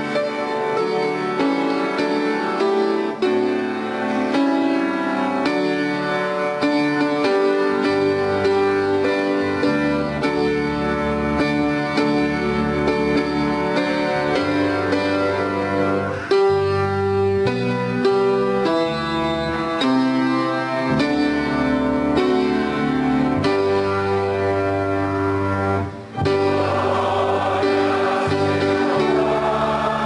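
Church hymn music: sustained instrumental chords playing the hymn, then, after a brief break about 26 seconds in, the congregation's voices join in singing.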